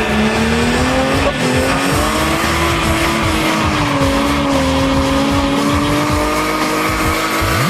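Holden VL Commodore Turbo doing a burnout. The engine is held at high revs, its pitch wavering slightly, while the rear tyres spin and squeal.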